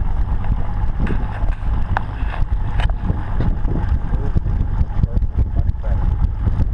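Wind buffeting the microphone on an open boat, a steady low rumble, with a few light clicks about a second apart.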